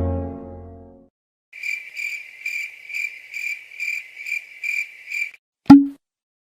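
A low horn-like tone fades out, then a series of evenly spaced, high-pitched, cricket-like chirps comes at about two and a half a second for almost four seconds. Near the end a single sharp click with a brief low thump is the loudest sound.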